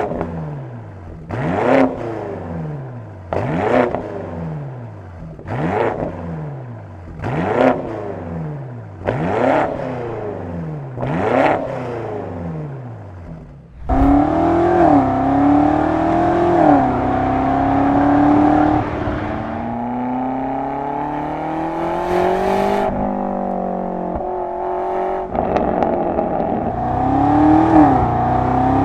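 BMW G90 M5's twin-turbo V8 through a Scorpion aftermarket exhaust, blipped about seven times, roughly one rev every two seconds, each rising and falling in pitch. About halfway it changes abruptly to the car under way, engine pitch climbing and dropping in steps through gear changes.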